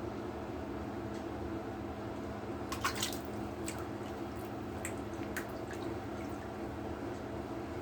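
Bath water dripping and splashing: a short flurry of splashes about three seconds in, then a few single drips, over a steady low hum.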